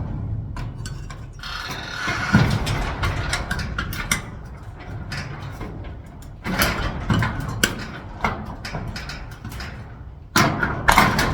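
Hand tools working at a garage door lock: irregular metal clicks, clanks and scraping, coming in a few bursts, with the loudest cluster near the end.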